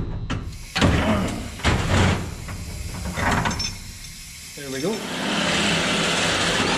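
Metal parts clanking and knocking several times as they are handled, then a power tool spinning up with a rising whine about two-thirds of the way in and running on with a steady hiss.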